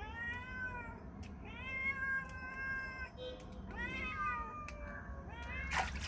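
A domestic cat meowing repeatedly: four drawn-out meows, the second held about a second and a half. Near the end, water splashes in a steel bowl as a crab is rinsed.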